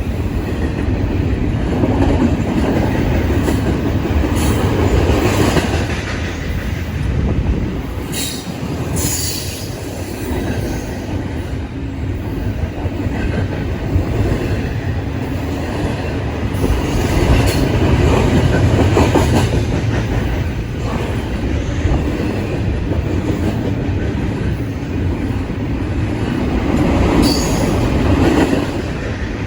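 Train rolling past: a steady rumble of wheels on rail, with clicking over the rail joints and brief high wheel squeals, one about nine seconds in and another near the end.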